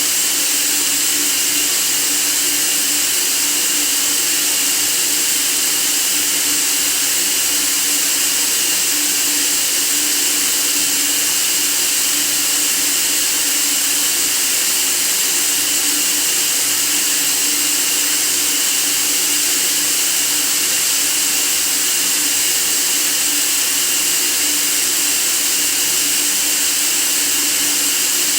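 Steady white-noise hiss, even and unchanging, strongest in the high end, with a few faint steady tones within it.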